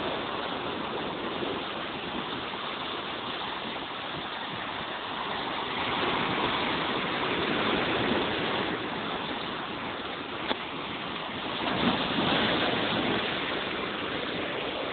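Sea surf washing on the shore: a steady rushing that swells and eases every few seconds.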